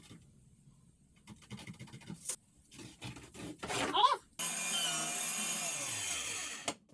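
Power saw cutting into wood subfloor, likely cutting out the vent opening: it starts suddenly, runs steadily for about two seconds, then its pitch drops as it winds down and stops. Before it come short scraping and handling sounds and a brief vocal noise.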